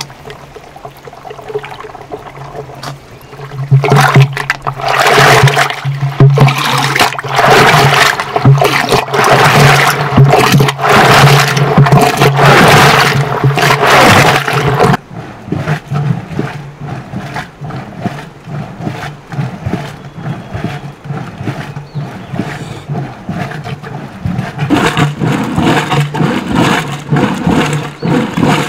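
Curd being churned in a tall wooden churn: a wooden dasher with a perforated disc at its foot is plunged up and down through the curd, sloshing and splashing in repeated strokes. The strokes are loudest for about ten seconds, starting about four seconds in, then ease off and pick up again near the end.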